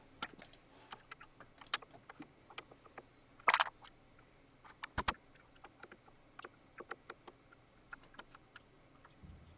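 Small clicks and ticks of a screwdriver and loose screws against the metal casing of a Digidesign 003 console as screws are undone, with a brief louder scrape about three and a half seconds in and two sharp knocks near five seconds.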